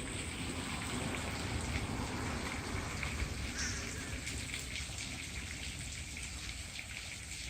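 Steady hiss and patter of falling water, with a low rumble underneath.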